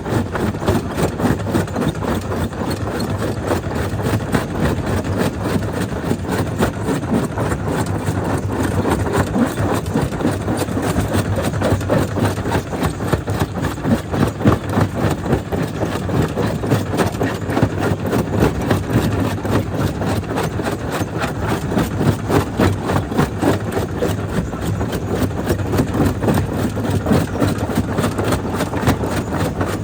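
Jaw crusher running steadily as it breaks black stone, with a continuous rattle of many small knocks over a low machine drone.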